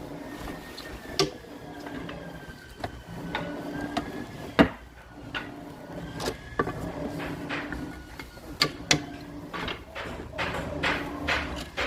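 Irregular knocks and clatter, one sharp knock loudest about halfway through and a quick pair later, over a steady low hum and a faint wavering whine.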